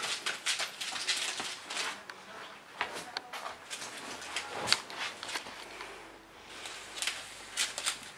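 Puppy's and ferret's claws scrabbling and tapping on a hardwood floor and shag rug as they romp, in quick irregular flurries that thin out for a while after the middle.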